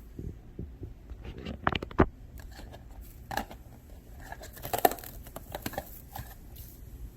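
Scattered clicks and knocks with some rustling, the loudest two about two seconds in and about five seconds in.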